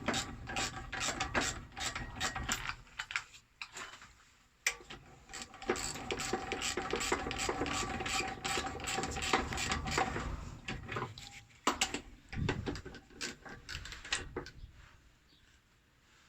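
A hand tool being worked to tighten a fitting, making rapid ratcheting clicks in quick runs. There is a short pause a few seconds in, and the clicking dies away near the end.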